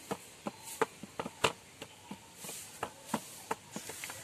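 A scatter of short, sharp clicks and taps, a few a second at uneven spacing, over faint outdoor background.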